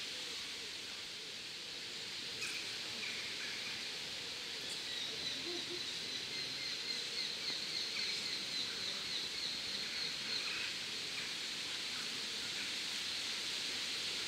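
A bird calling a long run of short, high repeated notes over a steady outdoor hiss of wind and leaves; the run starts about a third of the way in and fades out about two thirds through.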